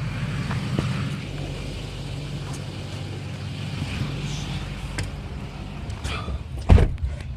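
Vehicle engine running with a steady low rumble, heard from inside the cab. Small knocks and one loud thump near the end.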